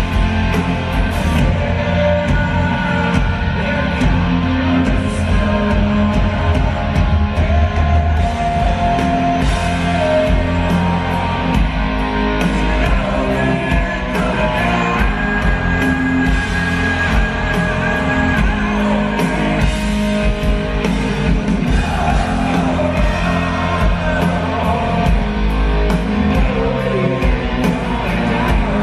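Live rock band playing loud, heavy distorted electric guitars over bass and drums, with a man singing into the microphone at times.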